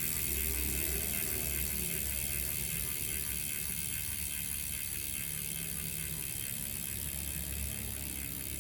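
Road bike's rear freehub clicking in a fast, steady buzz of pawls as the wheel spins freely, slowly fading as the wheel slows.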